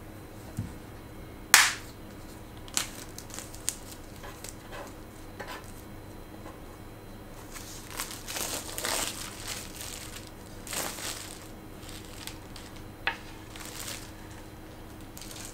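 A wooden chopping board handled on a table covered with paper towels: a sharp knock about a second and a half in and a few lighter taps, then two stretches of paper crinkling and rubbing in the second half.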